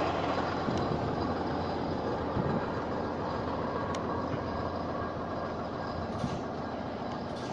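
Steady rumbling outdoor noise with a couple of faint clicks.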